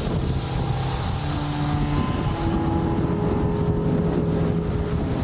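Steady motorcycle engine drone mixed with wind noise on the camcorder's microphone, the engine's note shifting in pitch now and then as it rides along.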